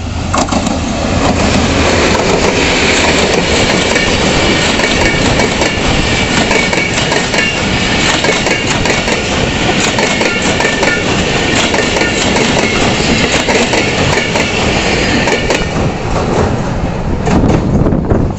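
A passenger train running past close by over a railway bridge, led by an HGMU diesel-electric locomotive. The locomotive's engine passes first, then the coaches' wheels clatter steadily over the rails. High ringing tones sound through the middle of the pass, and the sound eases off near the end as the train moves away.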